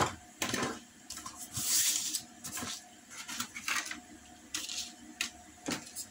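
Hand tools and cardstock pattern pieces handled on a workbench: a string of sharp knocks and clicks as tools are moved and set down, with the card sliding and rustling about a second and a half in.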